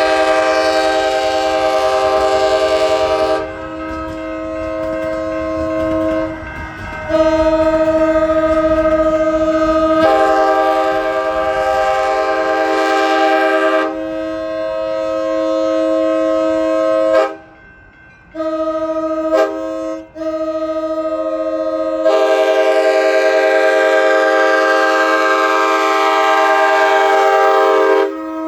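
A locomotive's multi-chime air horn sounded in a long run of blasts, some long and some short, with some of the chime notes dropping out and returning. Low rumble from the departing train runs underneath.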